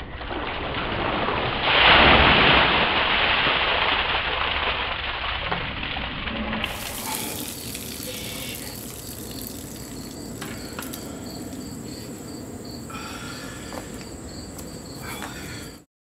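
Ice water pouring from a plastic bucket over a person's head and splashing onto a lawn, loudest about two seconds in, then dying down to trickling and dripping with scattered small ticks. The sound cuts off suddenly near the end.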